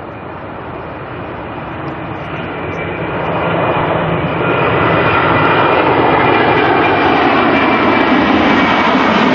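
Jet airliner engines passing close by, growing louder over the first few seconds and then holding steady and loud, with a faint high whine over the rushing noise.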